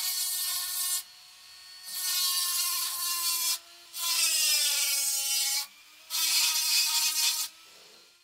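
Handheld rotary tool with a small cylindrical bit grinding the rusty threaded steel tang of a knife, in four loud passes of one to two seconds each, with the motor whining between them. The motor's pitch sags under load during the passes, and the tool shuts off at the very end.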